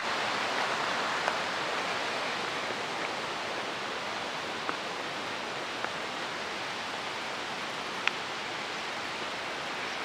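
Steady outdoor rushing noise, even and unbroken, with a few faint clicks.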